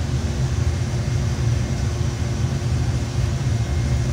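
Steady low roar of a glass studio's running gas-fired furnace and its blowers, unbroken, with a faint steady hum above it.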